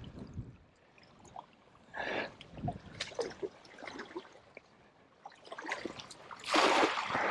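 A wet cast net being gathered and thrown, with water trickling and dripping from the mesh. Near the end comes a louder burst of splashing as the net lands on the water.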